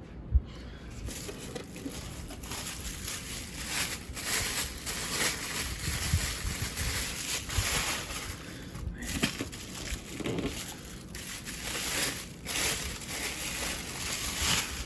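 Plastic and foam packing material crinkling and rustling as a statue part is unwrapped by hand, with brief pauses, after a single sharp knock near the start.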